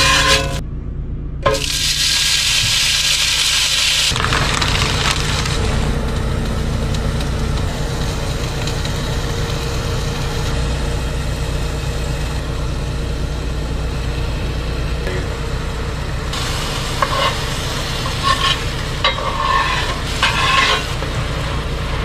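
Hamburger patties sizzling and frying in a cast iron skillet, louder for a couple of seconds near the start, with metal spatula clicks and scrapes against the pan near the end. A steady low hum runs underneath.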